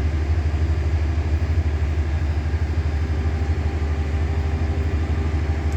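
Steady low hum of running machinery with a fast, even throb.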